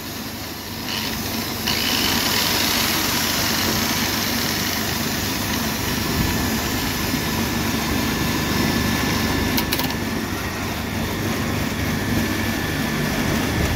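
Angle grinder spinning freely with no load, a steady motor whir and whine that gets louder about two seconds in, run off a homemade generator.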